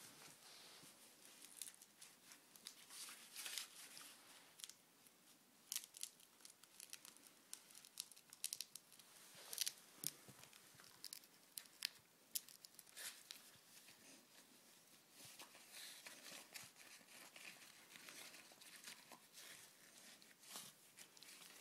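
Spinone dog lying on its back gnawing and chewing at a toy held in its paws: faint scattered crackling, scratchy rustling and sharp clicks.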